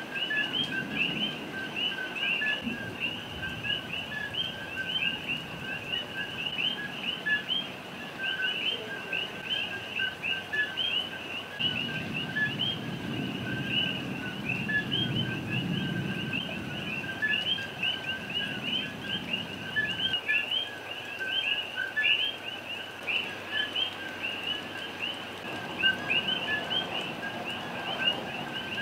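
Chorus of many coqui frogs calling at night, each a short two-note "ko-kee" with the second note rising, overlapping continuously. A low rumble swells for several seconds past the middle.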